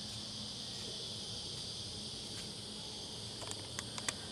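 Steady high-pitched insect chorus, with a few faint clicks near the end.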